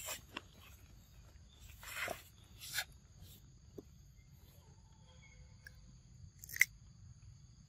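A young monkey biting into a raw cucumber, with one sharp crunch about six and a half seconds in and a few softer crunches and rustles earlier. A steady high insect buzz runs underneath.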